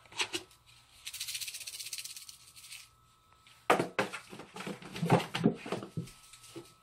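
A cat pouncing into a cardboard box, its paws knocking and scraping on the cardboard in a quick, irregular run of thuds from a little past halfway. Before that, a rustling scratch on a fabric mat.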